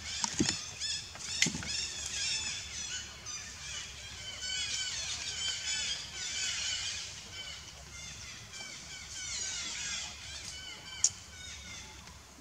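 Many high-pitched animal chirps and squeals overlapping in a busy chorus, with a few sharp clicks, the loudest near the end.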